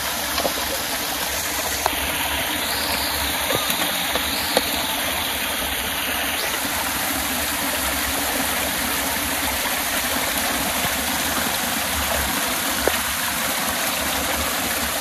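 Water pouring in streams off an overhanging earth bank and splashing into a flooded den, a steady rush.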